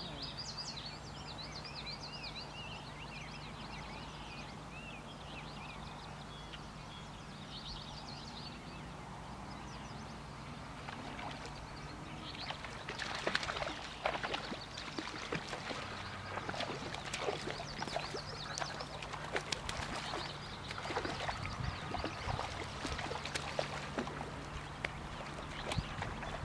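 Birds singing over a low steady hum. From about halfway in, irregular splashing and sloshing of a person wading through shallow river water.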